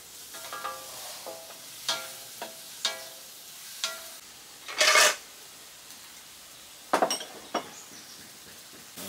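Diced eggplant sizzling in a wok while a wooden spatula stirs it, knocking against the metal pan several times with a brief ring. About five seconds in comes a short, louder rush of hiss, then a few more knocks.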